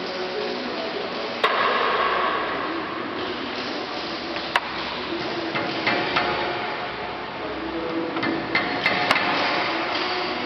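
Four-head UPVC window welding machine running, with sharp clacks and knocks, one about a second and a half in, one near the middle and a quick cluster near the end, over a steady mechanical noise.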